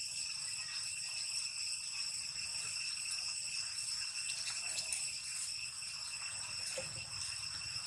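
Steady high-pitched insect drone, several even tones held without a break, with a few faint soft knocks and rustles.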